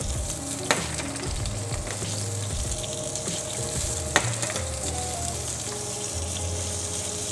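Vegetables sizzling in hot ghee in a steel wok, a steady hiss, with two sharp metallic clinks, one about a second in and one about four seconds in.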